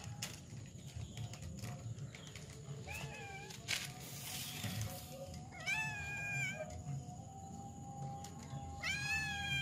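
Domestic cat meowing three times, a short call and then two longer ones of about a second each, spaced a few seconds apart.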